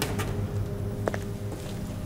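A low steady drone with a few sharp, separate clicks and knocks, two near the start and one about a second in.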